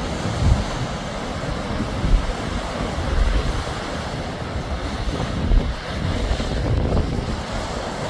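Rough sea surf breaking and washing on a sandy beach, steady and unbroken, with wind buffeting the microphone in low gusts.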